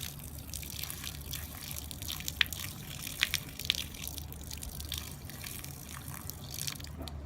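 Water splashing and dripping, with scattered sharp ticks and drops over a steady hiss.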